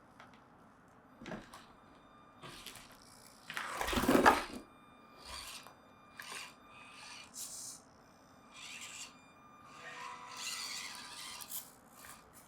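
Axial SCX24 micro RC crawler driving over a crawler course: its small motor and drivetrain run in short stop-and-go bursts while the tyres scrape over the terrain, with one much louder scrape or knock about four seconds in.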